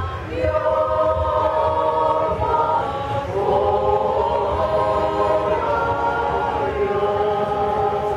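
Women's choir singing a cappella, several voices together in harmony holding long notes.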